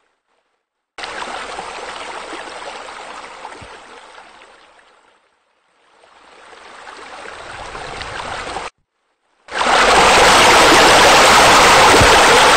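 Pool water feature splashing and running, in clips that start and stop abruptly: a fainter stretch beginning about a second in that fades away and back before cutting off, then a louder, steady stretch from about nine and a half seconds, when a rock waterfall spills into the pool.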